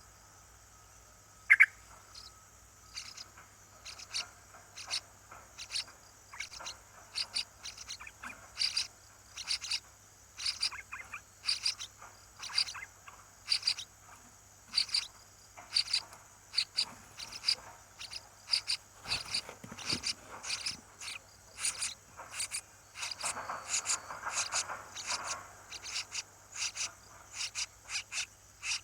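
Small birds chirping: short, sharp, high-pitched chirps repeating about once or twice a second, coming faster in the second half.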